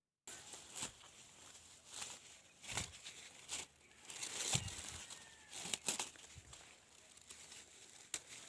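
Dry corn leaves and husks rustling and crackling as they are handled, with irregular sharp snaps, starting abruptly.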